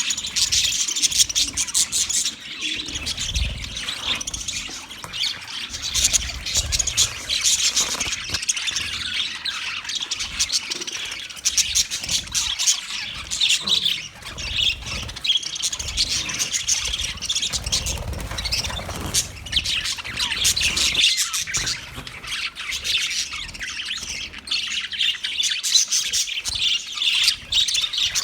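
A flock of budgerigars chattering continuously, with many overlapping chirps and squawks.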